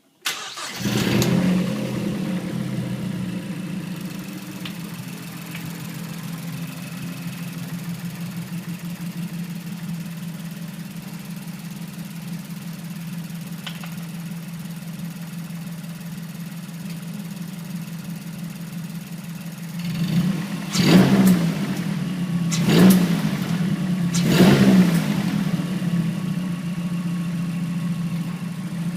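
2008 Mazdaspeed3's turbocharged 2.3-litre four-cylinder starting, flaring briefly, then idling with a weird knock from the valve cover, which the owner is sure is not the injectors. Near the end it is revved three times in quick succession, with a weird rattle on each rev.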